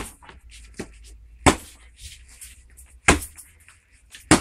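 Bare fist punching a held wooden sheet: four sharp, loud whacks about a second and a half apart, each with a short ring. The sheet does not break.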